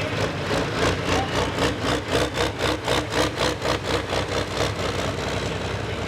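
Pulling tractor's engine running hard at full throttle while dragging the weight-transfer sled down the track, with a rhythmic pulsing of about six beats a second through the middle, then steadier.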